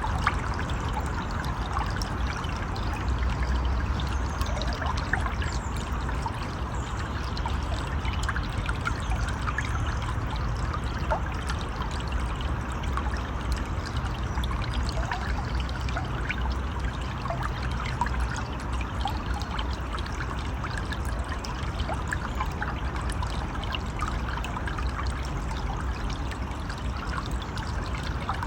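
River water flowing steadily, an even rushing with trickling and small splashes.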